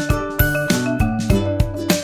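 Background music: bright melodic notes over a steady beat.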